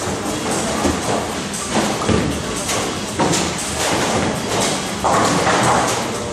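Bowling alley din in a large hall: a steady noisy background with repeated thuds and knocks of bowling balls and pins, and voices murmuring underneath.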